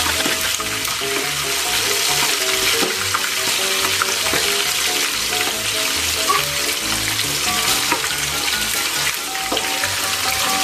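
Pig mask and ears deep-frying in hot oil in an aluminium wok, a steady loud sizzle, with metal tongs turning the pieces in the pan now and then.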